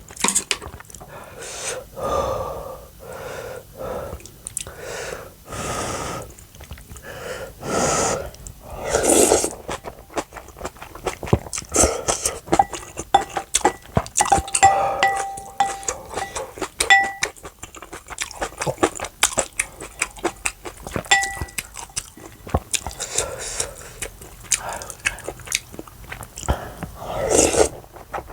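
Close-miked eating of spicy noodles, rice and kimchi: several long breathy sounds in the first ten seconds, then steady crisp chewing and crunching, with a few short ringing clinks of metal utensils on a bowl.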